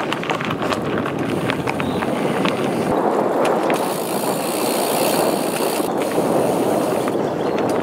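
Mountain bike rolling fast along a dirt and gravel forest track: a steady rush of tyre and rolling noise, with scattered clicks of grit and the bike's parts in the first few seconds.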